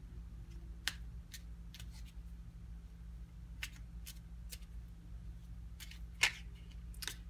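Scattered sharp clicks, about nine over several seconds, the loudest about six seconds in, over a steady low hum.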